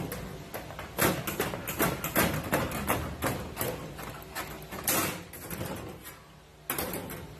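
Sheet metal being rough-cut by hand: a run of irregular sharp clicks and crunches, several a second, that eases off about six seconds in and comes back briefly near the end.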